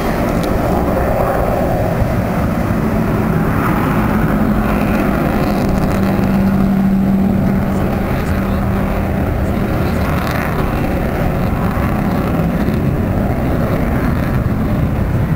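Avro Vulcan's four Rolls-Royce Olympus turbojets, heard as loud, steady jet noise as the bomber flies its display, with a steady low drone that is strongest about halfway through.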